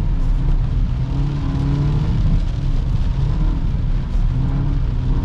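BMW 320i's turbocharged four-cylinder engine heard from inside the cabin, pulling steadily, its pitch climbing gently, dipping briefly about four seconds in, then rising again.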